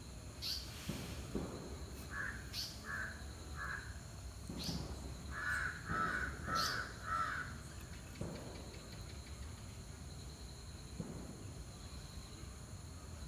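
A bird calling in a series of short, evenly spaced calls, three about two seconds in, then four louder ones a few seconds later, with a few faint sharp clicks between them.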